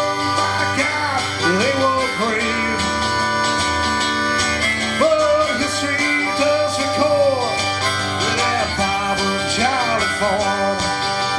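Live acoustic country-folk band playing: strummed guitar with harmonica and sung vocal lines.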